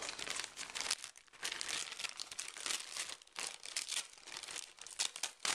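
Dense, irregular crinkling and scraping with many small clicks, from broken glass fragments and old adhesive being picked and scraped out of a Galaxy S3's screen frame, with a sharper click near the end.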